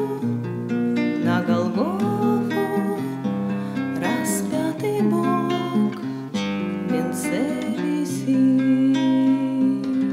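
Instrumental ending of a gospel song: acoustic guitar strumming and picking over sustained low backing notes. The music fades out just after this.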